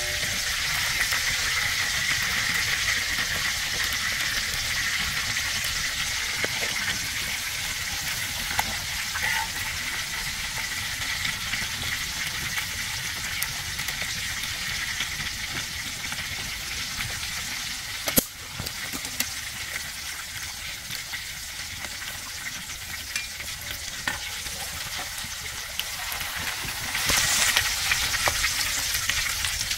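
Food frying and sizzling in a pan over a cooking fire, a steady hiss with a sharp knock about 18 seconds in and louder sizzling near the end.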